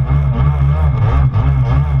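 Stand-up Kawasaki Jet Ski's two-stroke engine running hard at speed, its note wavering rapidly up and down as the hull skips over the chop, with water rushing and spraying off the hull.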